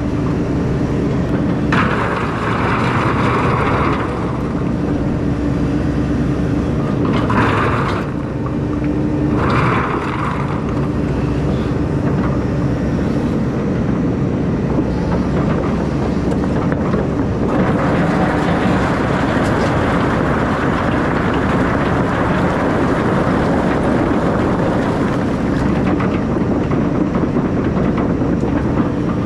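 Takeuchi excavator's diesel engine running steadily with a held hum, heard from the operator's seat as the boom and bucket are worked. Brief rushes of hiss come three times in the first third, then a longer, steadier hiss from about two-thirds of the way through.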